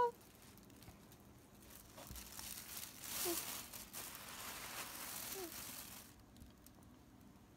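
Tissue paper crinkling and rustling as it is handled. It starts about two seconds in, is loudest about three seconds in, and stops abruptly about six seconds in.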